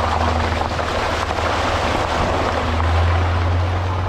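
4x4 truck driving along a muddy dirt trail, heard from a camera mounted low beside the front wheel: a steady engine drone with tyre and mud noise, the drone swelling a little about three seconds in.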